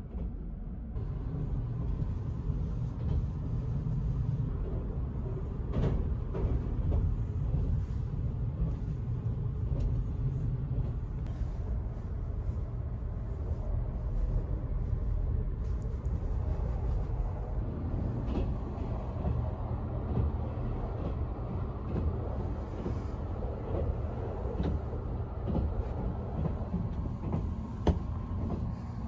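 A moving train's running rumble heard inside the compartment, which grows fuller a little past halfway. A few knocks and clicks come from the seat cushions and bedding being handled.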